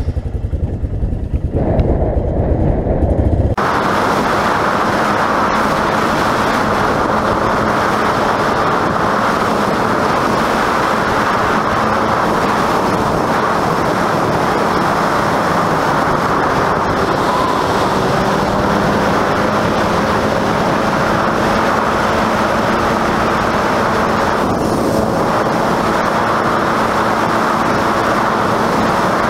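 Honda FourTrax ATV engine running steadily on the move, under a dense rush of wind and trail noise. A heavy low rumble in the first few seconds gives way abruptly to a steadier, higher rush.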